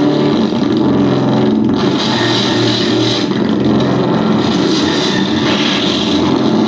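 Loud live electronic noise music from a laptop and electronics setup: a continuous wall of noise over low droning tones that shift in pitch every so often.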